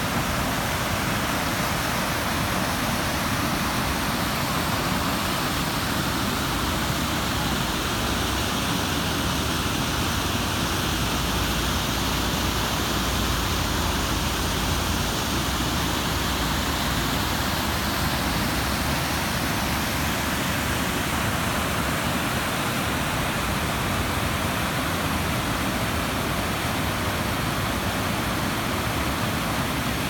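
Waterfall: white water rushing and splashing down over rock ledges, a steady, unbroken roar of noise.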